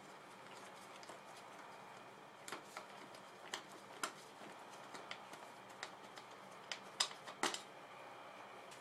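Scattered light metallic clicks and clinks of bolts and hand tools being handled while the drive-belt cover comes off a scooter, with two louder clinks near the end.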